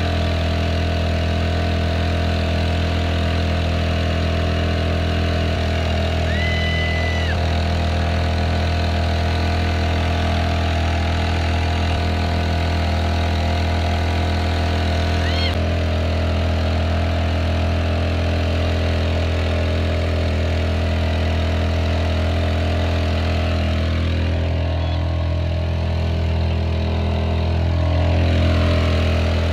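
Small Honda four-stroke outboard motor on an inflatable dinghy running steadily at a constant cruising speed, under load while towing a paddleboard.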